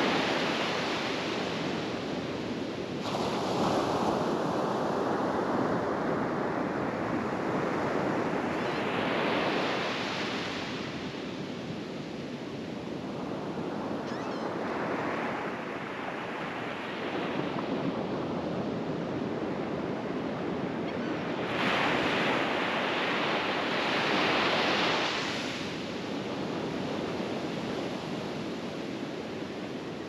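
Small ocean waves breaking on a sandy beach and washing up the shore. The noise of the surf swells and fades every few seconds, and some breakers come in with a sudden crash.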